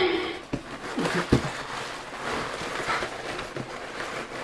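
A large cardboard box being handled and turned, with scraping and rustling and a couple of sharp knocks against it about half a second and just over a second in.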